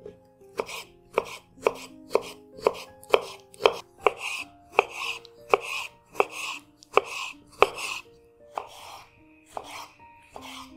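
Kitchen knife chopping pickled cucumbers on a bamboo cutting board, about two knocks of the blade on the board a second, spacing out in the last few seconds.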